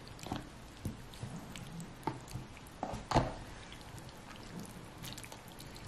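Wooden chopsticks stirring and lifting food in a plastic tray of hot pot broth: scattered soft clicks and knocks against the tray amid wet stirring, the loudest knock about three seconds in.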